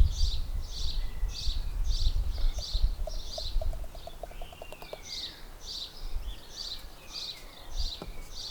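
A small songbird repeating a short, high chirp about twice a second, over a low wind rumble on the microphone that is heaviest in the first few seconds. About halfway through, a quick run of faint ticks.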